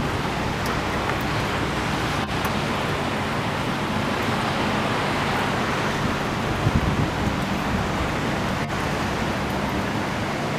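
Steady rushing noise of wind and surf in storm weather, with brief gusts buffeting the microphone about six to seven seconds in.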